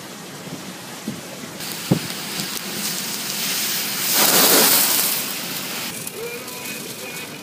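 Storm waves breaking and washing in over a steady rush of wind and surf. A broad roar of water swells, peaks about four seconds in, then dies away, with a few dull thumps in the first two seconds.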